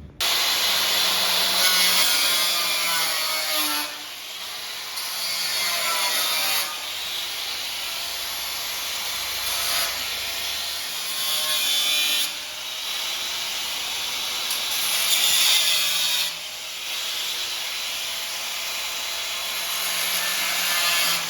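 A handheld power tool cutting or grinding into the steel gate where the lock is to be fitted. It works in several long passes, louder and softer by turns every few seconds as the load changes.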